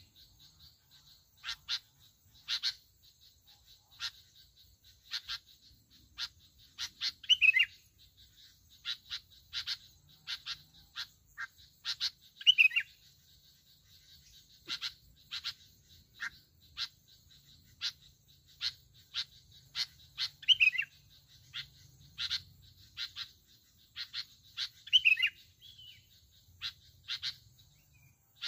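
Bông lau bulbuls calling: sharp, short chirps about once a second, broken every few seconds by a brief falling warbled phrase. This is territorial calling around a decoy cage.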